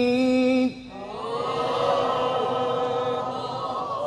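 Quran recitation in maqam Nahawand: the reciter's long held melismatic note ends just under a second in. A crowd of listeners then answers with a drawn-out call in many voices at once.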